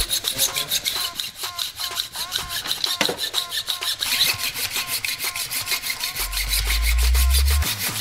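Hacksaw cutting through a Fox 38 fork's aluminium steerer tube in a saw guide, in quick, even back-and-forth strokes, the blade ringing briefly on each stroke. One sharper knock about three seconds in.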